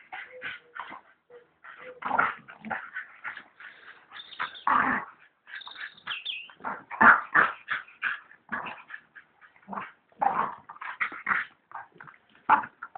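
Two dogs, a mastiff-cross-pit bull and a Staffordshire bull terrier, fighting: a fast, irregular run of growls, yelps and whimpers, with a high-pitched whine a few seconds in and the loudest outburst about halfway through.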